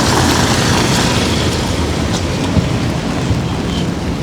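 Steady rain hiss with a low rumble underneath and a few faint ticks of drops.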